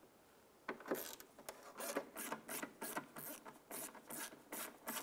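A ratchet driving a T25 Torx bit on an extension clicks in quick, short strokes, about three a second, as it backs out a tail light mounting screw. The clicking starts under a second in.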